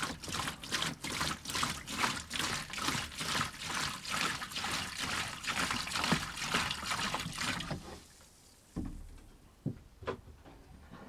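Vinegar pouring from a plastic jug into a plastic tub that already holds liquid, splashing in an irregular stream; the pour stops about three-quarters of the way through, leaving a few small drips and splashes.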